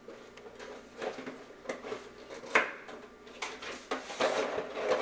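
Someone rummaging through kitchen drawers and cupboards: a run of knocks and clatters, the sharpest about two and a half seconds in, busier near the end.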